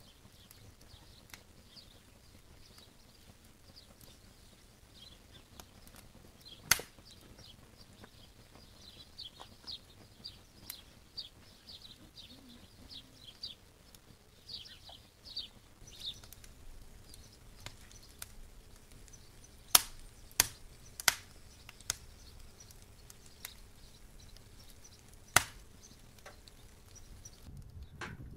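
Open wood fire burning with a few sharp, loud pops: one about seven seconds in, three in quick succession around twenty seconds, and one more near twenty-five. Small birds chirp in quick runs in the background through the first half.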